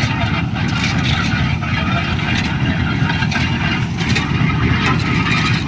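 A heavy engine running steadily with a dense low rumble, with scattered light scrapes and knocks over it.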